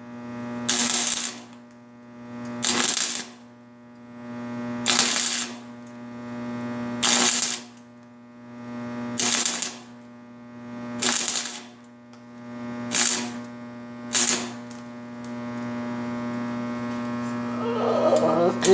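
Stick welder arc on thin stainless exhaust tubing, struck in short hissing bursts about every two seconds, each about half a second long, to fill a crack and holes in the pipe. A steady electrical hum runs underneath. The bursts stop about fourteen seconds in, leaving only the hum.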